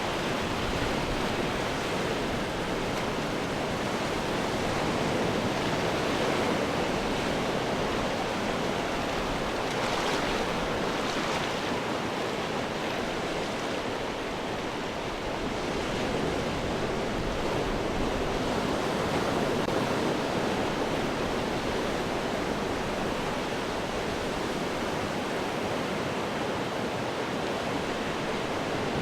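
Ocean waves breaking on rocks: a continuous wash of surf that swells and eases gently, with a slightly brighter surge of spray about ten seconds in.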